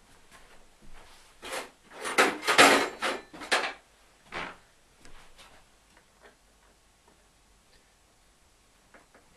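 Hand tools being picked up and handled on a wooden workbench: a quick run of knocks and clatters about two to four seconds in, then a few lighter clicks.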